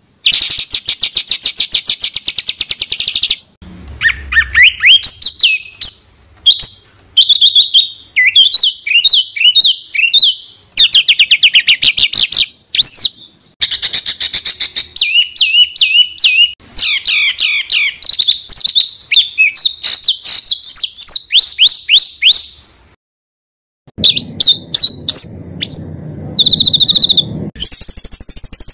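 Songbirds singing in close recordings spliced one after another. Dense rapid trills, strings of short sharp notes and quick upward sweeps are cut off abruptly between clips, with a brief silence about 23 seconds in. This is 'tembakan' rapid-fire song material used as masteran to tutor caged songbirds.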